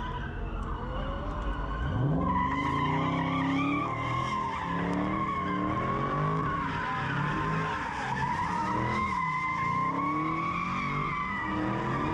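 Car tyres squealing in a long, slightly wavering screech while the engine revs hard, the revs climbing sharply about two seconds in and then rising and falling: a car spinning its wheels.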